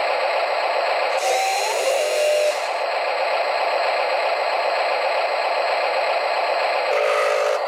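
Huina RC wheel loader's small electric motors and gears whining as the boom lifts the bucket, the whine sliding in pitch about a second in and again near the end, over a steady rushing noise.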